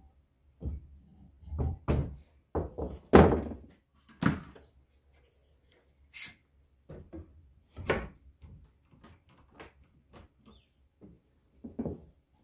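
Irregular thuds and knocks of tools being handled on a wooden workbench: a hacksaw laid down and a bar clamp put onto the axe handle. The loudest knock comes about three seconds in.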